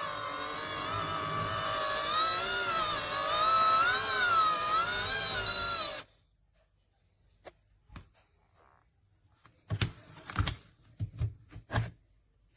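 Ice cream maker motor running with a whine that wavers slowly in pitch, cutting off abruptly about six seconds in. Then a few short knocks and clicks follow, about seven to twelve seconds in.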